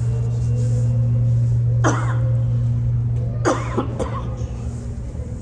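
Steady low hum of a subway station platform with no train present. A person coughs about two seconds in and again at about three and a half seconds.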